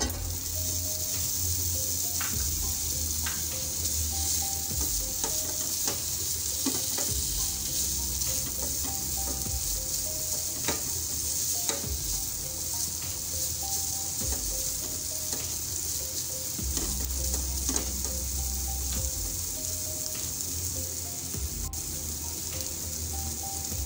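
Marinated chicken cubes sizzling steadily as they fry in hot oil in a non-stick pan, with scattered clicks as they are stirred with a spatula.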